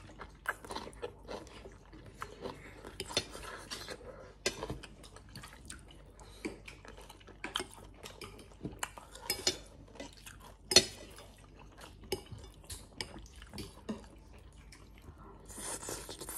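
Close-up eating sounds: a fork and knife clinking and scraping on a plate, with one sharper clink a little past the middle, and thick noodles being slurped, most noticeably near the end.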